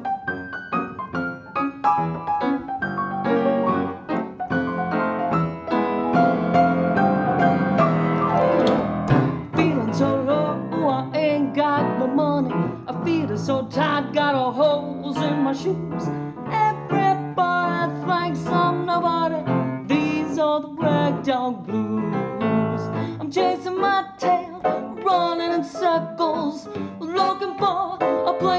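Piano playing a ragtime-blues accompaniment, with a woman's voice joining about a third of the way in, singing without clear words and with vibrato.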